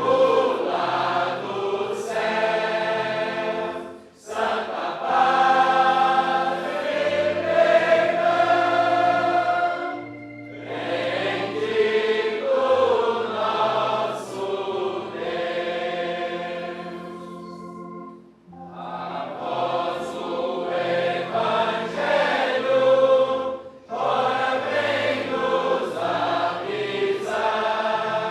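Choir singing a hymn in long held phrases, with short breaks between the lines.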